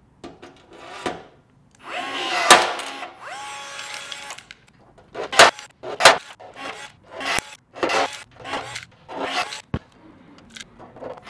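Milwaukee cordless rivet tool pulling stainless steel blind rivets into an aluminium spar doubler: a short motor whir, then a string of sharp snaps in quick succession, about one every half second to second, as each rivet mandrel breaks off.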